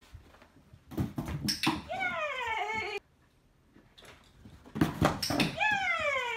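A dog giving a high, falling whine twice, each cry lasting about a second and coming right after a few sharp knocks.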